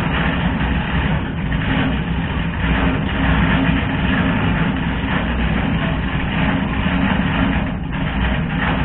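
A heavy engine running steadily at idle, a constant low rumble.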